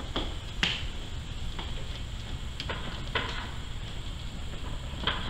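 A handful of scattered sharp plastic clicks and taps as a wiring connector is handled and pushed onto a throttle body, the loudest about two thirds of a second in.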